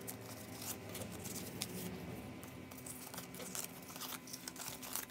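Brazilian real banknotes rustling and crinkling faintly as they are handled and sorted by hand, in small irregular crackles.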